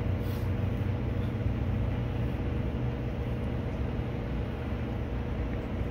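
Steady low rumble of outdoor background noise, with no speech.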